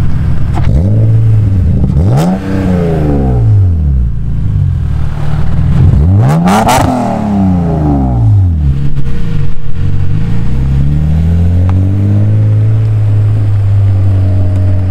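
Swapped BMW S52 3.2-litre straight-six in an E36 BMW 328, breathing through Schmiedmann shorty headers, an X-pipe and a UUC exhaust, revving hard during a burnout: the revs climb and fall twice, then hold a steady note for the last few seconds.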